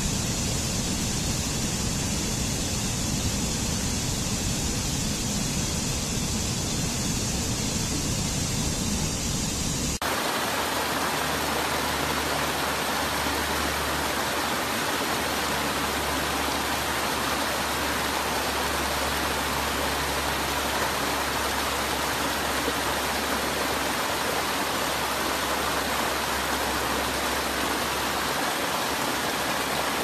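Water rushing steadily down a rocky stream cascade. About ten seconds in, the sound switches abruptly to a different, more even rush of water.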